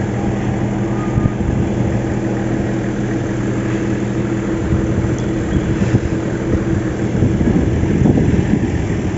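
A vehicle engine running steadily: an even hum with a low rumble underneath.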